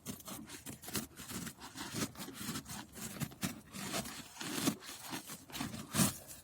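Papery wasp nest being torn open, its layered paper shell crackling and tearing in quick irregular rips, with the loudest rip near the end.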